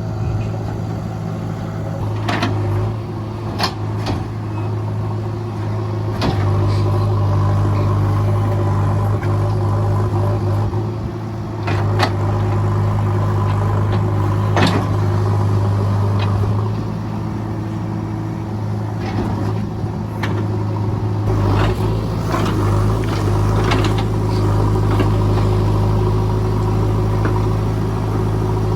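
JCB backhoe loader's diesel engine running steadily under working load, its pitch and loudness rising and falling as the machine works, with scattered sharp knocks from the digging gear.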